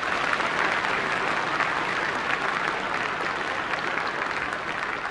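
A large audience applauding steadily, the clapping easing slightly near the end.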